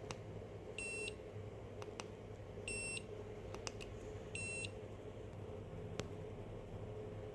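Xiaomi electric scooter's built-in buzzer beeping three times: short, high beeps about a second and a half apart. A few sharp clicks fall between the beeps, over a low steady hum.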